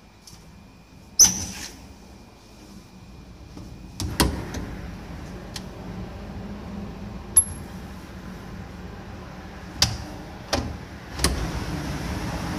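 A door being opened, with a sharp latch click about a second in, then scattered knocks and clicks of someone moving down a stairwell over a steady low hum that grows louder toward the end.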